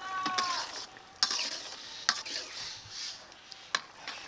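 Wooden spatula stirring a simmering shrimp curry in a brass kadai: a handful of scraping knocks against the metal pan over the hiss and bubbling of the boiling gravy.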